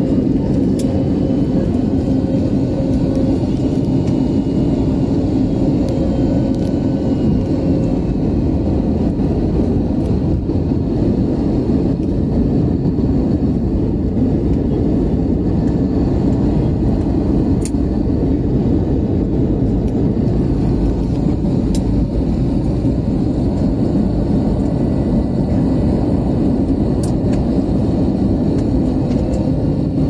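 Steady airliner cabin noise: the even rumble of jet engines and rushing air heard from inside the passenger cabin, with a faint low hum that fades and returns.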